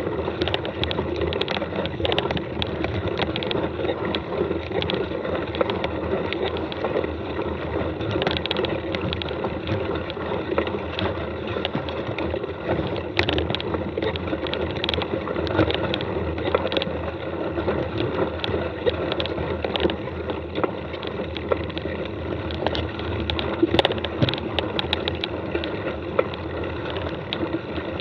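Mountain bike rolling along a track: steady tyre and ride noise with frequent rattling clicks from the bike as it goes over the ground.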